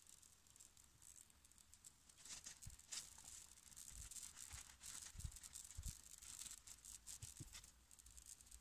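Faint rubbing and scratching of fingers smoothing a pink wax occlusal rim on a stone dental model, with a few soft knocks as the model is handled.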